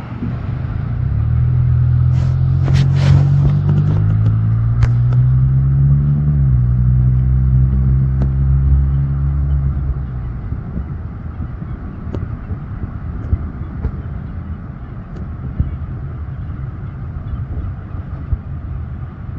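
A motor vehicle engine running loudly and pulling up through the gears. Its pitch climbs, drops sharply about six and a half seconds in as it shifts, and climbs again. It fades at about ten seconds into a steady low rumble with a few scattered clicks.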